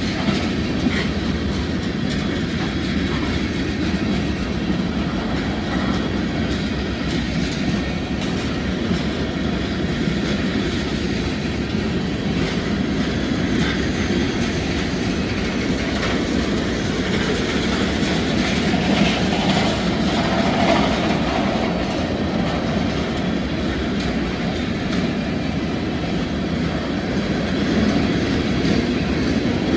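Freight cars of a Norfolk Southern manifest train, tank cars and covered hoppers, rolling past at steady speed, their steel wheels rumbling continuously on the rails.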